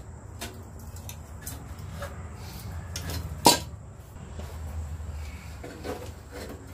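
Scattered metal clinks and knocks of hand tools working on a rotted exhaust pipe, with one sharp knock about three and a half seconds in, over a steady low hum.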